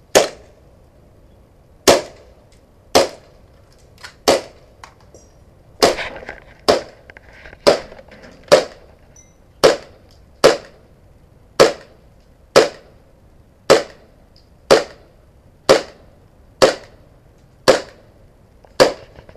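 Airsoft pistol firing a steady string of about eighteen single shots, roughly one a second, each a sharp crack.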